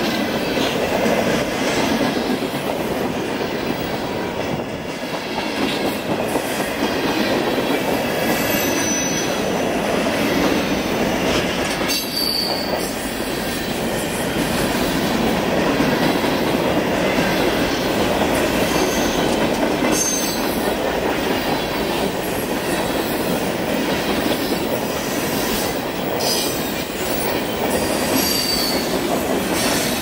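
Freight train cars rolling past at speed: a steady rumble and hiss of steel wheels running on the rails, with a few brief high wheel squeals.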